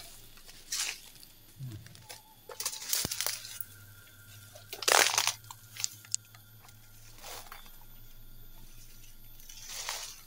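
Footsteps crunching and rustling through dry leaf litter and fallen bamboo: about half a dozen irregular crunches, the loudest about five seconds in.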